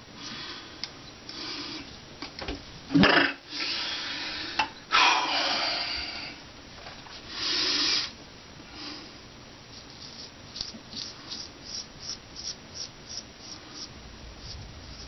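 Straight razor scraping through a week and a half's beard growth in short strokes, with a quick run of about three strokes a second near the end. In the middle there are a few louder rushing noises and a sharp knock.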